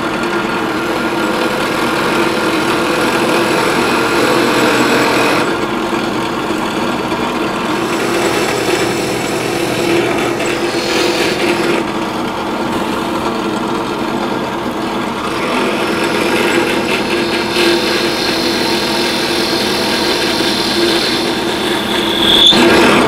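Milling machine spindle running at high speed while a wood-cutting bit bores a pillar hole through a CZ 455's wooden rifle stock. The rough cutting noise comes and goes in stretches over the steady motor hum as the quill is fed down, with a brief high squeal near the end.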